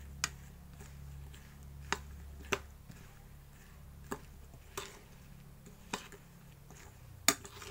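Metal spoon knocking and scraping against a bowl while tossing green chillies in coarse ground spice mix: about seven sharp knocks, irregularly spaced.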